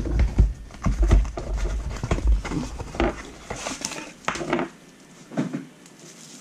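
A small cardboard box being opened and a bubble-wrapped battery pack pulled out: irregular crinkling of plastic wrap and cardboard with small knocks, busiest in the first few seconds and thinning near the end.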